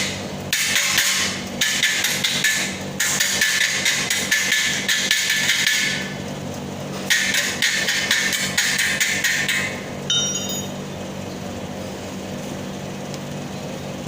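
Stick (arc) welding: the electrode's arc crackles and sizzles in several runs of one to three seconds with short pauses, then stops about ten seconds in. A steady low hum from the welding machine continues underneath.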